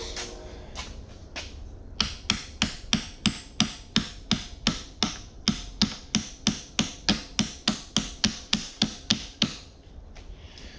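A steady run of hammer blows, about three to four strikes a second, starting about two seconds in and stopping near the end, after a few faint clinks.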